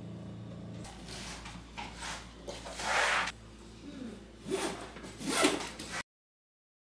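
A few brief rustling, scraping handling noises over a low steady hum, cutting off abruptly near the end.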